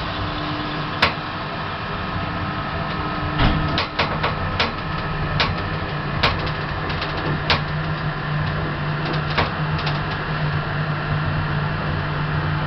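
Lift machinery running: a steady low hum that grows stronger about halfway through, with scattered clicks and knocks.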